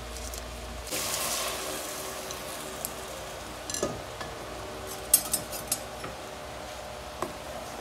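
Blended salsa verde poured from a glass blender jar into a hot pot, sizzling loudest at first and fading over a second or two. Scattered sharp clinks of the glass jar and utensils against the pot follow.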